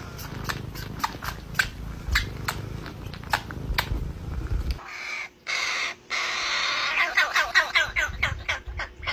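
A fledgling crow giving a fast run of raspy begging calls, about five a second, while being hand-fed. Before it, a run of sharp clicks over a low rumble.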